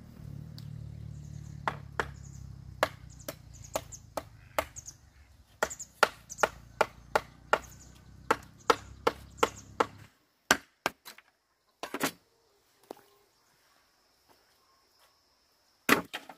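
A large knife chopping with repeated sharp blows, each one a hard thwack, coming about two a second for several seconds and then spaced out near the end. A low steady hum runs underneath and cuts off about ten seconds in.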